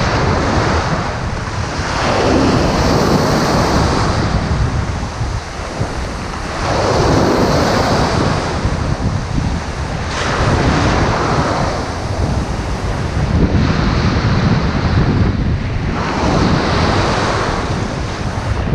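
Surf breaking on the shore in surges every few seconds, with strong wind rumbling on the microphone throughout.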